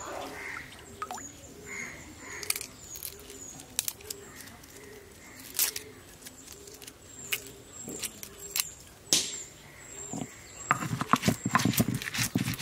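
A bird repeating a short, high, falling chirp about twice a second over scattered clicks and knocks. Near the end comes a burst of rapid clattering.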